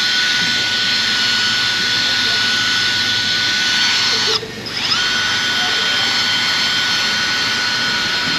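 Snap-on drill spinning a buffing ball against a plastic headlight lens with polish, a steady high whine. About four and a half seconds in the drill briefly lets off, then spins back up with a rising whine.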